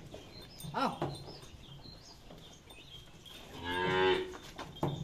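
Gir cattle mooing: a short call about a second in, then one long, loud moo lasting about a second near the end.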